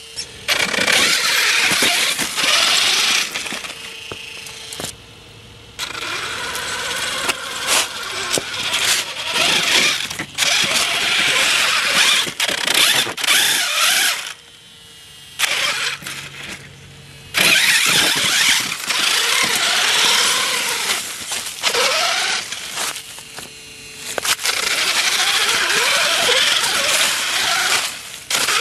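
HobbyKing Basher Nitro Circus 1/8-scale 4WD RC monster truck driving over rock and cobblestone: bursts of motor and drivetrain whine rising and falling with the throttle, with tyres scrabbling on stone, broken by several short pauses.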